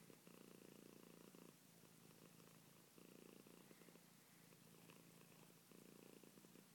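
Black-and-white domestic cat purring, faint and close, swelling louder three times in a slow even rhythm.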